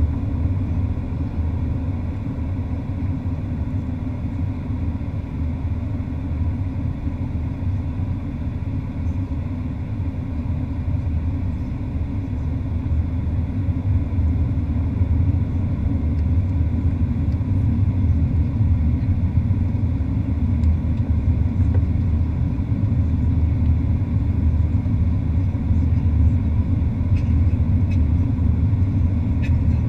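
Steady low rumble of engine and airflow noise in the cabin of a Boeing 737-800 in flight, heard at a window seat beside its CFM56-7B turbofan engine. The noise grows slightly louder about halfway through.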